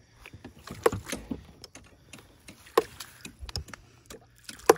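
Homemade hydraulic ram pump cycling: its brass waste valve slams shut with a sharp knock about every two seconds, each knock a water-hammer stroke that pushes water up the delivery line, with fainter clicks between.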